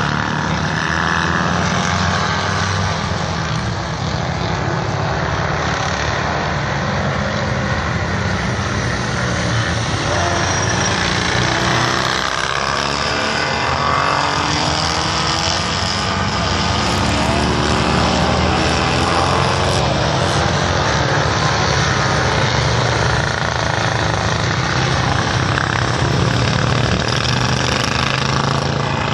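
Several racing motorcycles' engines running as they lap the circuit, a steady mass of engine noise whose pitch rises and falls with throttle and gear changes.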